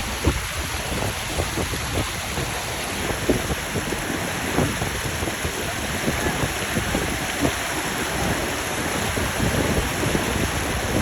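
Waterfall water pouring and splashing: a loud, steady rush with uneven splashes through it.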